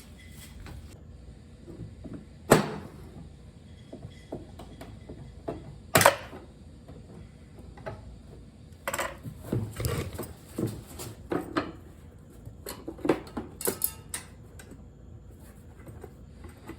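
Clicks and clanks of pliers and metal parts being handled on a lawn tractor's gas tank fittings: two sharp clacks a few seconds apart, then a busier run of smaller knocks and clicks.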